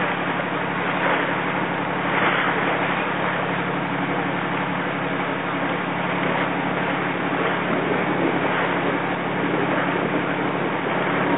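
A 1954 Chris-Craft 22-foot Sea Skiff's engine running steadily, a low even hum under a constant hiss of wind and water.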